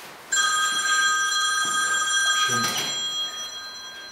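Mobile phone ringing: an electronic ring of several steady tones that starts sharply just after the beginning and slowly fades. A brief soft thump comes about two and a half seconds in.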